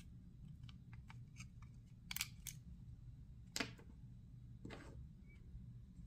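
Faint metallic clicks from a Colt 1911 Government Model CO2 BB pistol's slide and slide stop being worked by hand: a quick double click about two seconds in, then a sharper click and a softer one.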